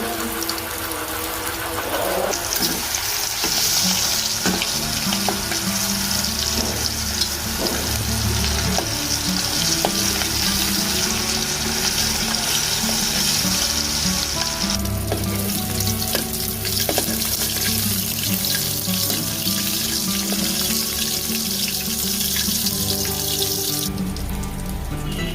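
Prawn and pumpkin curry sizzling and bubbling in the pan after water has been added, with a high hiss that eases off about 15 s in, over background music.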